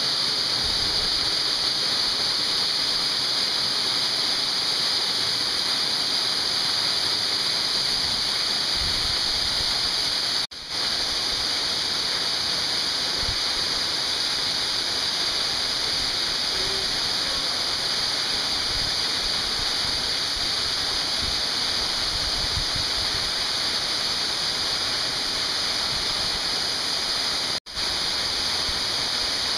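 Steady rushing of a waterfall close by, an even noise of falling water, cut off for an instant about ten seconds in and again near the end.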